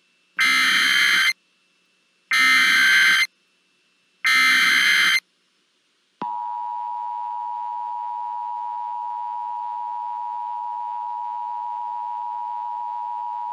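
Emergency Alert System tones: three one-second SAME header data bursts about two seconds apart, then from about six seconds in the steady two-tone EAS attention signal, 853 and 960 Hz. Together they mark the start of an emergency alert broadcast.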